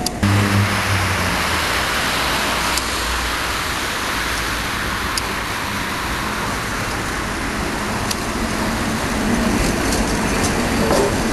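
A tram rolling along street track amid road traffic: a steady rush of wheel and road noise that begins abruptly, with a run of sharp clicks near the end.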